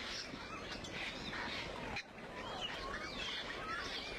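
A chorus of many birds chirping and whistling in short, overlapping calls over a steady background hiss, with a brief drop in level about halfway through.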